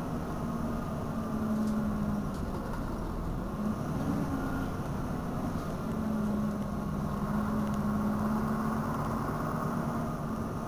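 Diesel engine of a Berliet PR100 MI bus (MIPS engine) running steadily, heard from inside the passenger cabin; its pitch briefly rises and dips about four seconds in.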